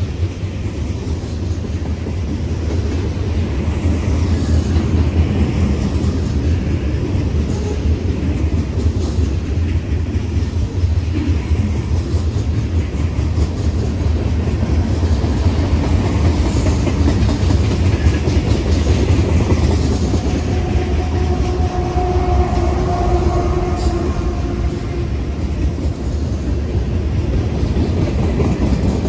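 Mixed freight train cars (covered hoppers, tank cars, boxcars) rolling past close by: a steady rumble with the clickety-clack of steel wheels over the rails. A faint steady tone joins briefly about three quarters of the way through.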